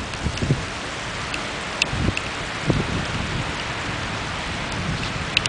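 Steady rain falling during a thunderstorm, with a few sharp taps of drops striking close by.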